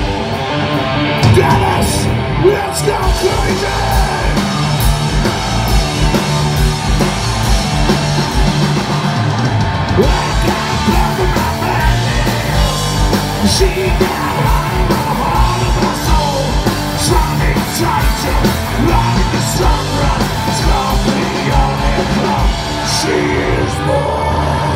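Heavy metal band playing live at full volume: distorted electric guitars, bass and a pounding kick drum, with shouted vocals over the top.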